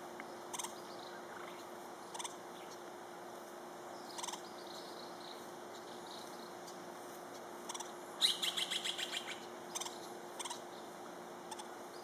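Hispaniolan woodpecker calling: short single notes spaced a second or two apart, then about eight seconds in a rapid run of about ten notes lasting about a second, the loudest part.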